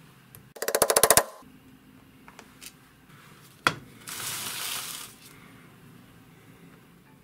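Hand work on the metal case of a Sperry gyro amplifier unit that is stuck shut: a quick rattle of rapid clicks about half a second in, a single sharp knock a few seconds later, then about a second of scraping.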